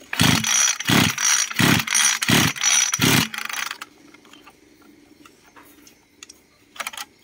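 Small brush-cutter engine being pull-started with its recoil starter: five quick pulls about 0.7 s apart, each cranking the engine with a whirr, but it never catches and falls quiet after the fifth. The engine is rusty and is suspected of making no spark.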